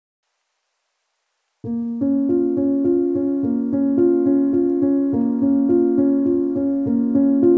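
Silence for about a second and a half, then background keyboard music starts suddenly: steady, repeating piano-like notes.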